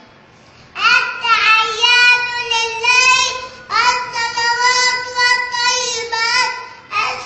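A small boy's high voice chanting the Arabic prayer recitation aloud as imam, in long, melodic phrases with short pauses between them.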